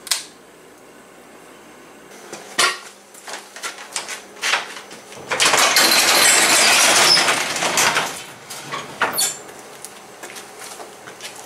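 Sectional garage door lifted by hand, its metal panels and rollers rattling loudly up the tracks for about two and a half seconds, with a few clanks before and after. A sharp click from a shop light's pull chain comes right at the start.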